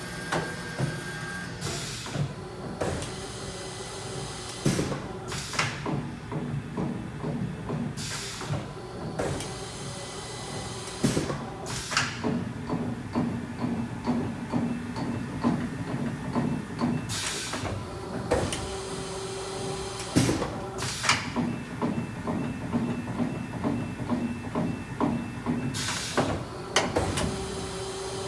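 Haas VF-2SS CNC vertical machining center running: a steady machine hum with held whining tones, broken at irregular moments by short bursts of hiss.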